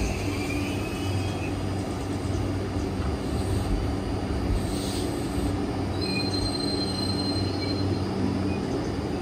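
Tobu Railway electric train at a station: a steady low hum, with a thin high wheel squeal from about six seconds in until about eight seconds.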